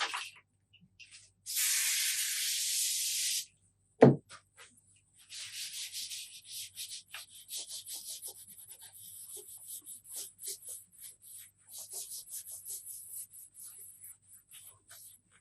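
A steady hiss for about two seconds, then a single sharp knock, then a long run of irregular rubbing and scratching strokes, over a faint low hum.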